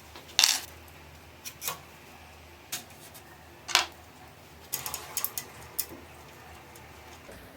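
Scattered metallic clinks and knocks of parts and tools being handled while a steady rest is set up on a wood lathe; the loudest come about half a second in and near the middle, with a quick run of clinks a little later.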